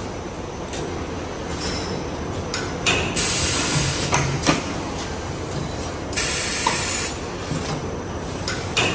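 JDGT-HQ air fryer paper liner forming machine running: a steady mechanical clatter with scattered clicks, and a hiss about a second long twice, about three seconds apart, as it cycles through forming liners.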